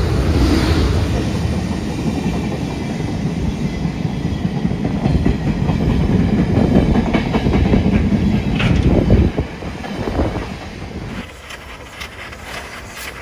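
JNR Class C11 tank steam locomotive C11 171 passing close while working hard with its train, a loud heavy rumble of exhaust and running gear that eases off about ten seconds in. After that, quieter with a run of sharp clicks.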